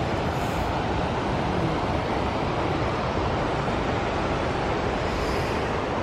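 Steady roar of a fast-flowing mountain river, running high with snowmelt, without a break.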